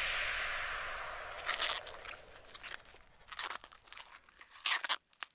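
A loud hiss fades away over the first second or so, followed by irregular crackling and crunching clicks, some in quick clusters, that trail off near the end.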